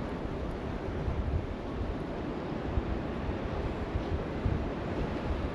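Wind gusting on the microphone over the steady wash of ocean surf.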